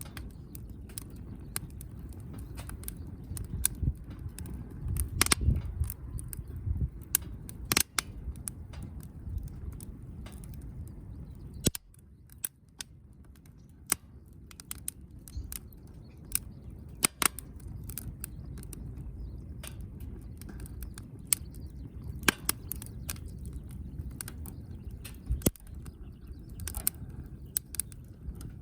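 Wood fire crackling: irregular sharp pops and snaps from burning firewood over a low steady rumble.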